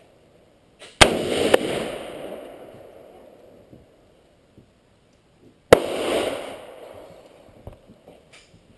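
AR-15 rifle firing three shots: two in quick succession about a second in, a third about four seconds later, each followed by a long echo that fades out.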